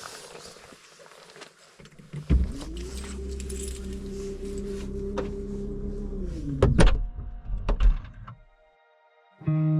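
Car sounds: a clunk, then a steady mechanical hum for about four seconds that winds down and ends with clunks, followed by a couple of clicks. Guitar music starts near the end.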